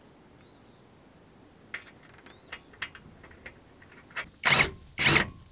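Light metallic clicks of a bolt, washer and nut being handled on a solar panel frame. About four seconds in come two short, loud bursts of a cordless drill driving the nut down.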